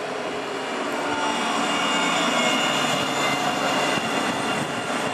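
Alstom Citadis 302 tram passing close by, with a high electric whine over steel-wheel rolling noise. It grows louder to a peak about halfway through as the cars go past, then eases a little.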